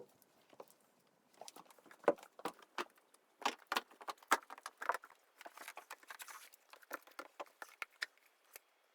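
Books being handled and set down into piles: irregular taps and knocks of covers against each other and the surface, with a brief sliding scrape about six seconds in.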